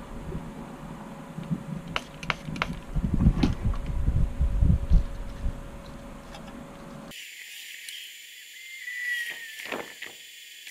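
A cloth rag rubbing and rustling as hands wipe down a plastic drone body with alcohol, with a few light clicks of handling and a faint steady hum underneath. About seven seconds in, the low sounds cut off abruptly, leaving only a thin hiss.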